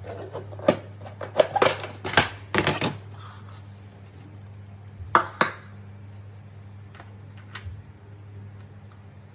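Kitchen containers and dishes being handled: a run of knocks and clatters in the first three seconds, two more just after five seconds, then a few light ticks, over a steady low hum.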